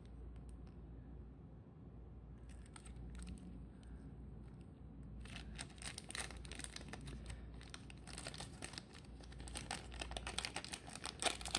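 Clear plastic packaging bag crinkling and rustling in the hands, beginning about five seconds in, after a few soft handling clicks.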